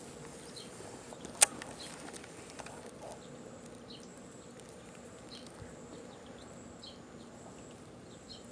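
Quiet outdoor ambience with faint, short, high chirps recurring every second or so, and a single sharp click about one and a half seconds in.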